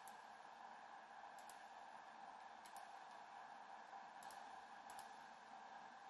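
Near silence: a faint steady hiss with about five soft, separate computer mouse clicks.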